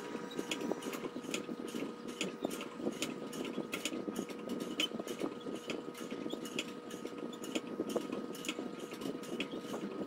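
Diamond sharpening film on a guided sharpener's rod, played back sped up, stroking across a ceramic knife edge: a fast, even rasping with sharp clicks about two to three times a second as the strokes reverse.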